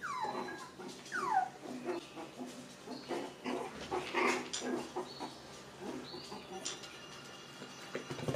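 Six-week-old poodle puppies whimpering and yelping, with two falling cries in the first second and a half, among scuffling and light knocks.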